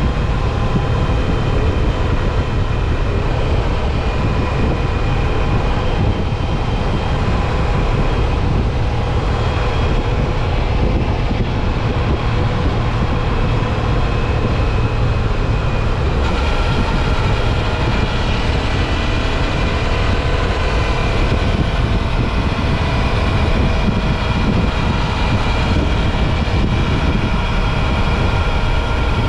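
Suzuki V-Strom 650 XT's V-twin engine running at a steady cruise under wind and road noise. Its tone shifts about halfway through as the engine speed changes.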